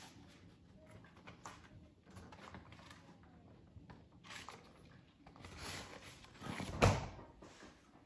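Refrigerator door being handled, with soft rustling and small knocks, then the door shutting with a sharp knock near the end, the loudest sound.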